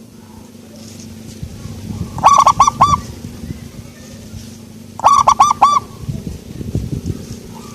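Local-strain zebra dove (perkutut) cooing: two phrases of four quick, pitched coos each, about three seconds apart.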